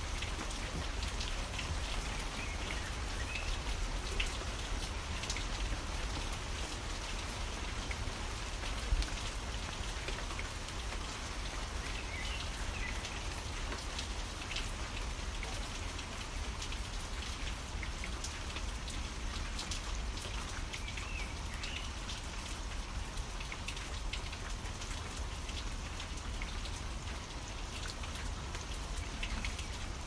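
Steady rain falling, with many individual drops ticking close by. A few faint bird chirps come through now and then.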